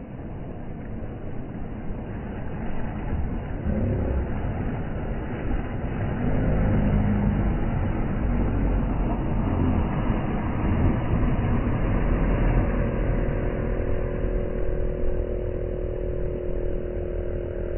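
Outboard boat motors running, louder from about six seconds in, with a steady engine hum joining for the last five seconds.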